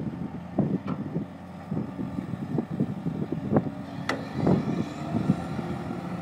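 Diesel engines of heavy tracked machinery, a pipelayer and an excavator, running in the background under gusts of wind buffeting the microphone. A sharp knock about four seconds in.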